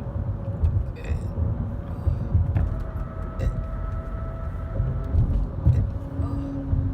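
Car driving, heard from inside the cabin: a steady low rumble of engine and road noise, with a few faint clicks and a faint steady tone for a couple of seconds in the middle.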